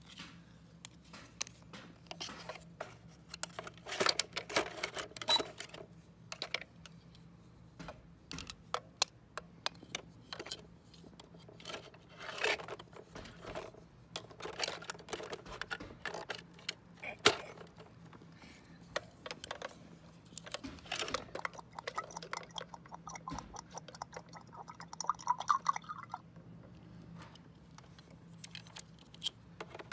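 Plastic toys being handled: scattered clicks, taps and rattles as a toy gas pump's nozzle and parts and small plastic figures are moved by hand.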